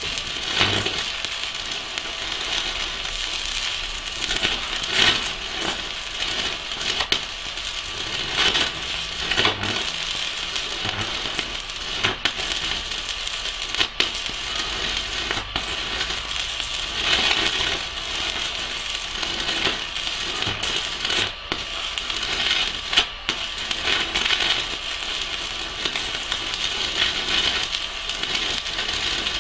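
Stick (MMA) welding arc crackling and sizzling steadily, with irregular small pops, from a 3 mm electrode burning at 160 A on a Pocweld MMA 200 mini inverter welder.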